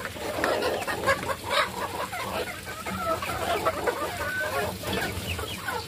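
A flock of chickens clucking, with many short overlapping calls, as they peck at food in a trough feeder.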